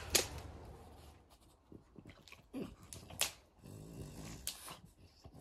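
A French bulldog chewing on a stick: scattered snaps and clicks, about five of them.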